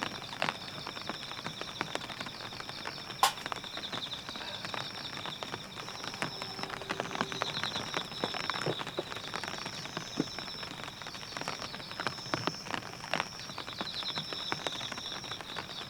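Raindrops tapping irregularly on the tent, with one sharper tap about three seconds in, over a steady high-pitched trill.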